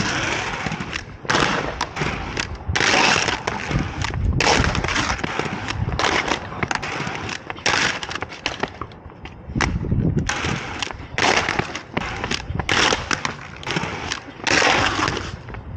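Aggressive inline skates on concrete: wheels rolling on rough pavement, and the frames and soul plates scraping and knocking on a concrete ledge in a run of short, separate scraping bursts.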